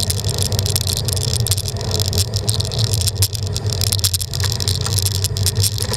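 Steady rumble of wind and road noise on a moving bicycle's camera, with scattered light clicks and rattles from the mount.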